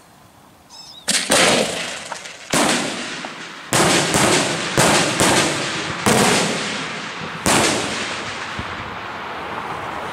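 Aerial firework bombs of a daytime diana salvo bursting overhead: about eight loud bangs over some six seconds, starting about a second in, each followed by a long rolling echo that fades out near the end.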